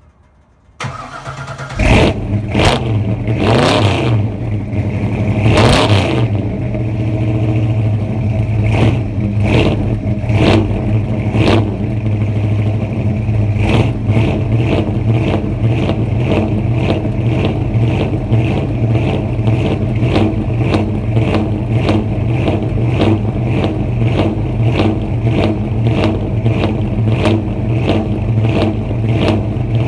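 Supercharged, cammed 355 small-block Chevy V8 in a straight-piped 1984 Oldsmobile Cutlass, cold-started after winter: a second of cranking, then it fires. It blips up and down three times, then settles into a loud, lumpy idle with regular sharp cracks from the exhaust.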